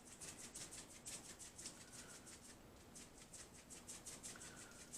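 Faint, rhythmic rattle of dry pork rub being shaken from a shaker onto raw pork butt, about five shakes a second with a brief pause midway.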